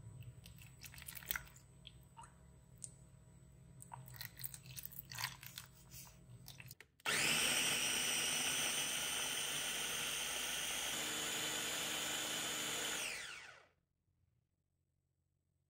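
A few light clicks and knocks, then about seven seconds in a KitchenAid mini food chopper's motor starts abruptly and runs loud and steady with a high whine for about six seconds, blending banana, berries, avocado and juice. Its tone shifts partway through, and it winds down with falling pitch and stops.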